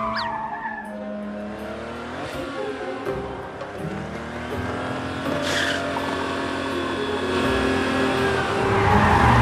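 Cartoon soundtrack music with sustained notes, overlaid with sound effects: a brief noisy swoosh about halfway through and a louder rushing noise near the end.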